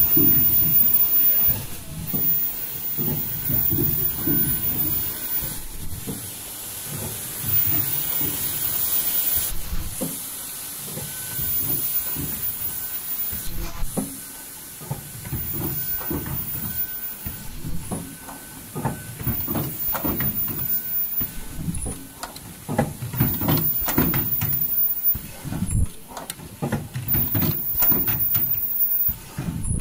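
Foldable N95 mask-making machine running its production cycle: a steady hiss of air with knocks and clacks, and a very high thin whine that comes back for a second or two about every four seconds.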